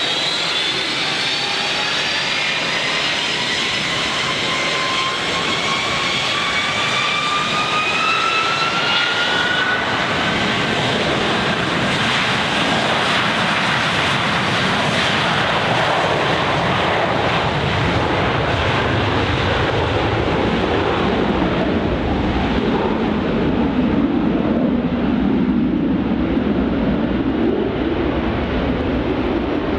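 Boeing 757-224 twin-jet engines spooling up for takeoff. A whine rises in pitch over about the first ten seconds, then gives way to a steady jet roar through the takeoff roll, turning to a deeper rumble near the end as the aircraft rotates.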